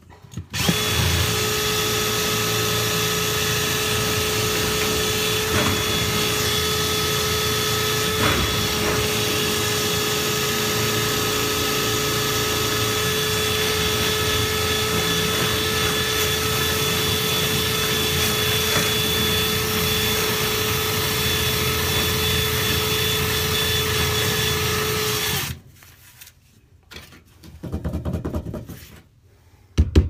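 Power drill spinning a rotary dryer-vent cleaning brush through the duct. It runs at a steady speed with a constant whine from about half a second in, then stops about 25 seconds in.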